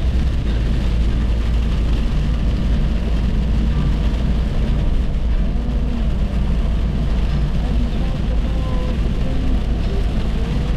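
A car driving on a highway: steady low rumble of road and engine noise that holds an even level throughout.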